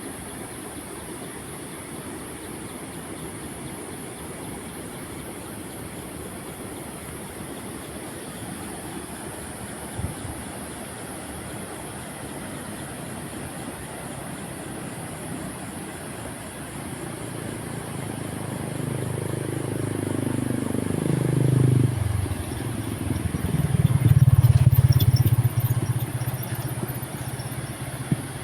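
A heavy vehicle passes close by. Its engine note rises in level and falls in pitch as it goes past, then holds loud and low for a few seconds before fading.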